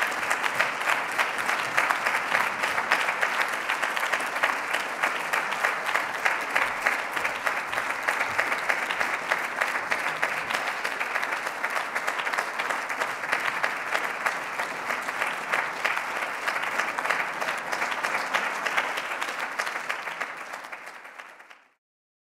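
Audience applauding steadily at the end of a lecture, fading out over the last couple of seconds and then cutting off.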